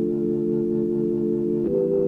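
Instrumental intro: a sustained organ-like keyboard chord that changes to another chord near the end.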